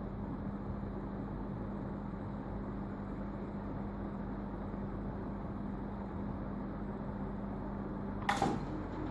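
1970s SMC H56 ceiling fan running with a steady hum and air noise; the owner notes it hums continuously on every speed. A sharp click comes near the end, after which the hum tone drops away.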